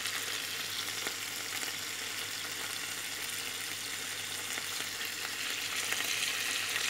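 Beef steaks sizzling in a hot pan of olive oil and butter, a steady crackling hiss that gets a little louder near the end.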